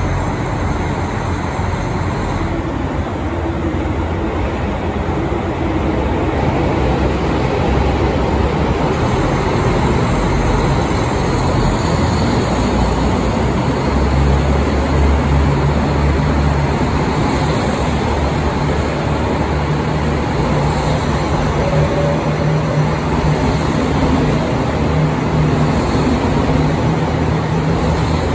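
Diesel express train pulling out under power, its underfloor diesel engines running with a steady low drone that grows stronger about halfway through as the cars pick up speed past the platform.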